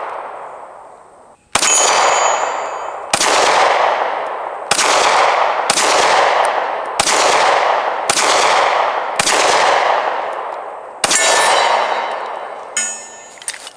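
SCCY DVG-1 compact 9mm pistol fired eight times at a slow, deliberate pace, roughly one shot every one to two seconds, each crack followed by a long echoing tail, with the clang of steel targets being hit.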